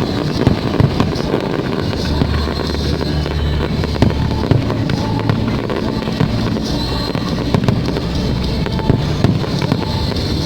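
Fireworks display: aerial shells bursting in irregular loud bangs over a continuous rumble, with the show's music playing underneath.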